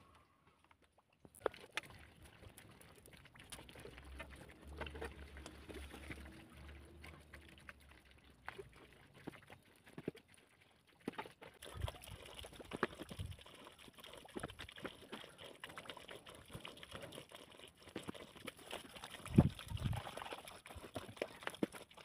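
Hands working in water in a metal basin: small splashes and sloshing with scattered clinks against the metal, busier in the second half.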